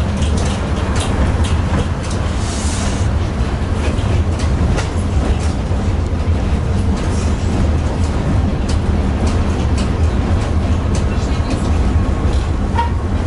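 Tatra T6B5SU tram running along the track, heard from inside the passenger car: a steady low rumble of motors and wheels on rails, with scattered clicks and knocks.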